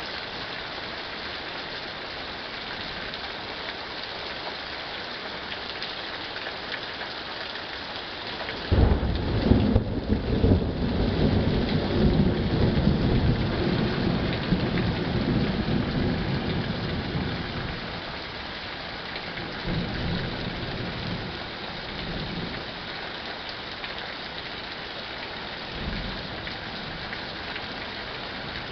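Rain falling steadily. About nine seconds in, a sudden thunderclap breaks into a long low rumble of thunder that fades over about eight seconds, followed by a few fainter rolls.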